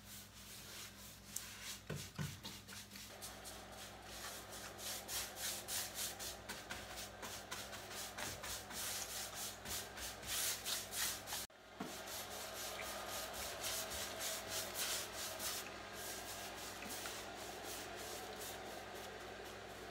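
Paintbrush scrubbing chalk paint onto the wood of a buffet in quick repeated scratchy strokes, with a brief break about halfway through.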